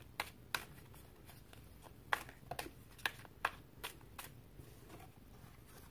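Tarot cards being handled and laid out: about ten light, sharp card snaps and taps, scattered over the first four and a half seconds.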